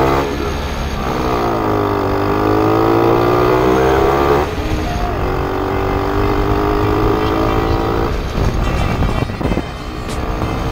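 Old two-stroke moped engine running under way, its note climbing as it accelerates. The note breaks off and drops about four and a half seconds in, again around eight seconds, and picks up once more near the end, as the throttle or gear changes.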